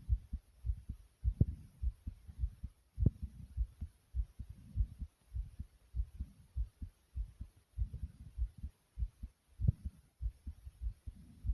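A person's heartbeat picked up close to the chest: quick, steady lub-dub thumps in close pairs, raised by exercise (air boxing).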